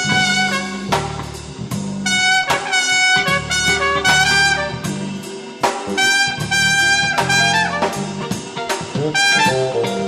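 Background music: brass-led jazz, with held horn notes over a low bass.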